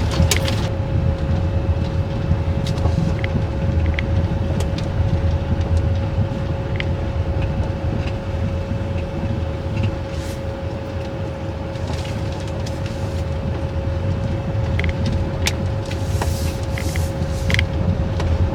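Minivan driving, heard from inside the cabin: a steady low road and engine rumble with a steady hum held at one pitch and scattered light clicks and rattles.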